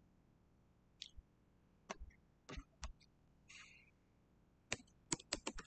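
A few separate computer mouse clicks, then typing on a computer keyboard in a quick run of key clicks near the end.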